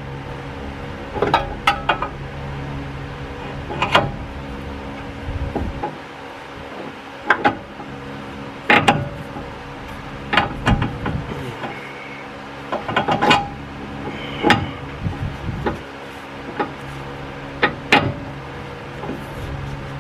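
Irregular metal clicks and knocks from a replacement inner tie rod being handled and slid into place on a Ford F-150's steering rack, over a steady low hum.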